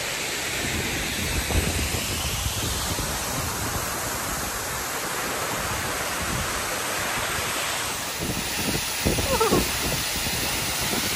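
Steady rush of water falling at a roadside waterfall, an even hiss-like noise with no let-up. A brief rising-and-falling tone cuts in about nine seconds in.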